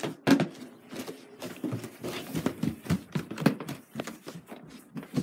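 Footsteps, several knocks a second, with rustling and bumping from a handheld camera being carried.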